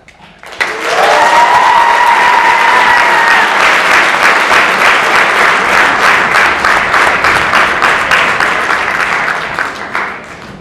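Theatre audience applauding at the end of a dance routine. A long, high-pitched held note rises over the clapping for the first few seconds. The applause thins out near the end.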